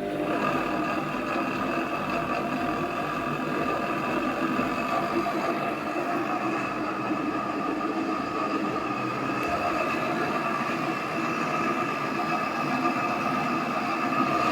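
AEG Öko-Lavamat 4100 washing machine on a fast spin, a steady whine over a rumble that the bad drum bearings make. It jumps up in loudness right at the start and then holds.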